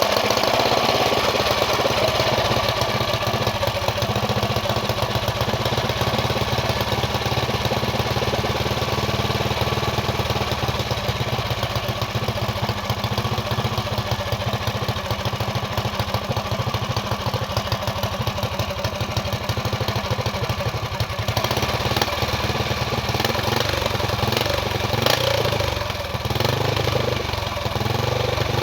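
Engine idling steadily with rapid, even firing pulses, typical of a motorcycle exhaust. The sound grows a little brighter about three quarters of the way through.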